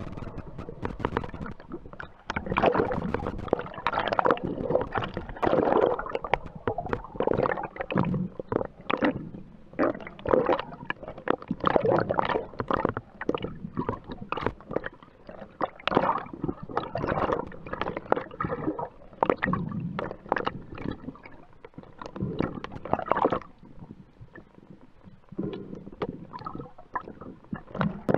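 Muffled underwater gurgling and sloshing of water, with many irregular knocks and rubbing sounds, heard through a camera held in the sea while a diver moves and handles a sea bass.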